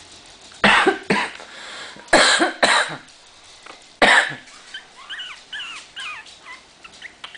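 Three-week-old Chihuahua puppies at play: several short, harsh, loud barks, coming in quick pairs, then a run of high, squeaky yips and whimpers that rise and fall in pitch.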